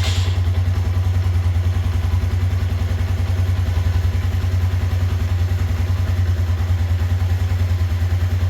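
A 125cc single-cylinder motorcycle engine idling steadily with an even, fast pulse, just after it fired up. Its smooth running shows that the newly fitted spark plug cap and HT lead are working.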